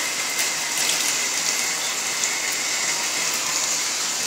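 Steady rushing water noise with light splashing, as a small dog paddles up to a floating pool ramp and climbs out with a toy in her mouth.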